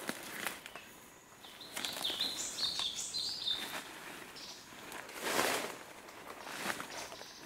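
Rustling and crunching in leaf litter and undergrowth as a snared muntjac is handled, loudest about five seconds in. A small bird chirps a quick run of short high notes in the first half.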